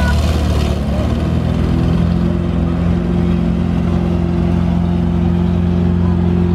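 Vehicle engine running steadily at low speed, its drone settling to one constant pitch about two seconds in.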